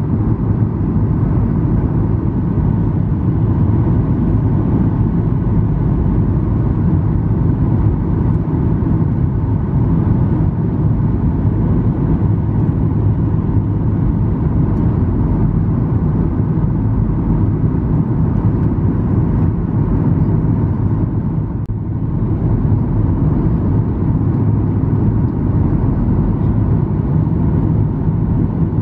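Cabin noise inside a Boeing 737-800 on approach with flaps extended: a steady low rumble of its CFM56 turbofan engines and the airflow past the fuselage, easing slightly for a moment about two-thirds of the way through.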